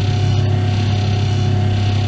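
Electric oven running with a steady low electrical hum, a few fainter steady tones above it and a light hiss.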